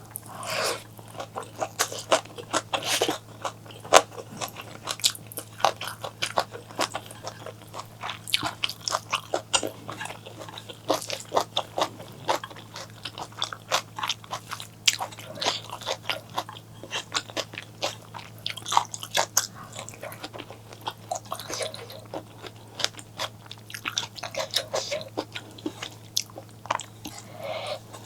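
Close-miked eating: crunchy bites and steady chewing with many quick wet mouth clicks, over a faint steady low hum.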